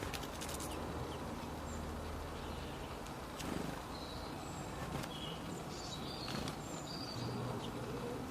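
Steady background hiss with a few short, high bird chirps in the second half and some faint clicks.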